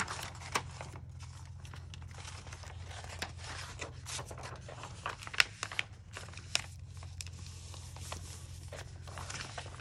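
Sheets of paper rustling and crinkling as they are handled, folded and smoothed flat by hand, with a few sharper crackles, over a low steady hum.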